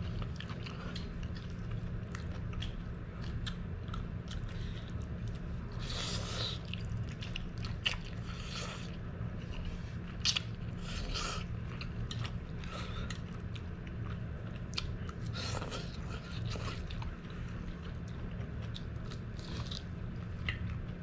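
Close mouth sounds of someone eating instant noodles: slurping noodles and chewing, with wet clicks and several louder slurps every few seconds. A steady low hum runs underneath.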